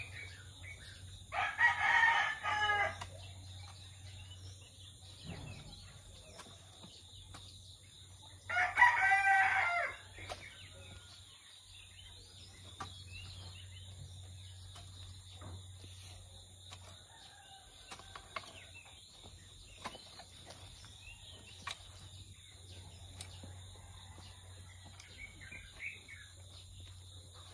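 A rooster crowing twice, about a second and a half in and again about eight and a half seconds in, each crow lasting around a second and a half. Between the crows, a garden rake faintly scrapes through loose soil.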